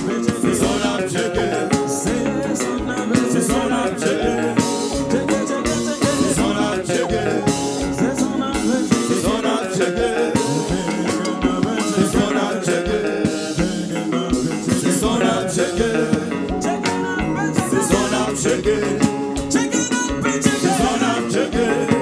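Live kompa band playing, with electric guitars, keyboards, drum kit and congas under singing voices.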